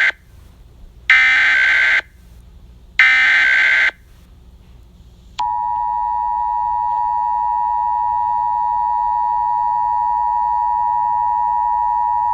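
Emergency Alert System alert opening: the end of one burst of the SAME digital header, then two more full bursts of harsh, screeching data tones, each just under a second long and about two seconds apart. About five seconds in, the EAS two-tone attention signal begins, a steady, piercing dual-pitched tone held to the end.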